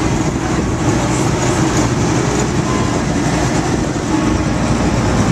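Amphibious DUKW tour vehicle driving on the road, heard from inside its open-sided passenger cabin: a steady, loud engine and road rumble.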